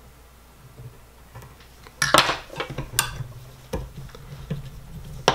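Handling sounds at a fly-tying vise: after about two seconds of quiet, a burst of rustling and a run of sharp metallic clicks and clinks as the hands work the materials and tools.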